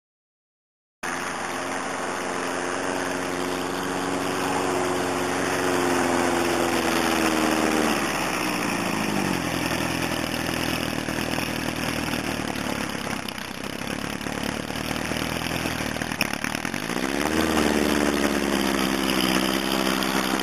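Thiokol Imp snowcat's engine running as the machine drives, cutting in abruptly about a second in. Its pitch creeps up, drops sharply about eight seconds in, stays low, then climbs back up about seventeen seconds in.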